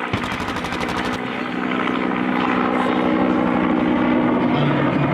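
Military turbine helicopters flying past, with a rapid, even chopping for about the first second, then a steady engine hum that grows gradually louder as they draw nearer.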